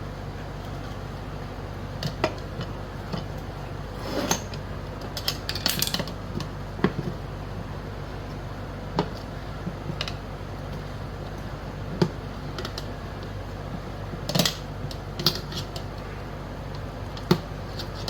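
Scattered metal clinks and knocks as tire tools pry a scooter tire's bead over the steel wheel rim by hand, with a quick run of them about four to six seconds in. A steady low hum runs underneath.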